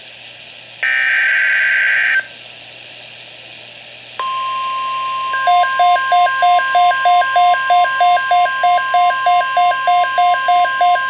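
Emergency Alert System SAME digital header bursts, buzzy electronic data squawks: the end of one, then a second lasting about a second and a half. About four seconds in comes a steady NOAA Weather Radio 1050 Hz alert tone, announcing a new weather watch. Soon after, a beeping alarm joins it, pulsing about two and a half times a second.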